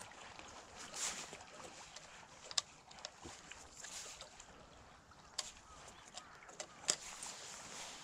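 Faint water noise from a gundog swimming across a pond, with a few sharp clicks.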